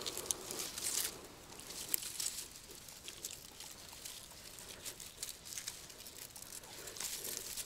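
Dry grass and reeds tangled in a landing net crackling and rustling, with light clicks and a few sharper ticks in the first couple of seconds, as a small carp is handled and freed from the net.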